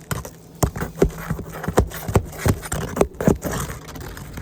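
Asphalt shingle being pried loose with a metal shingle-removal tool: a string of irregular sharp scrapes and knocks, about two a second, as the tool works under the shingle and its nails.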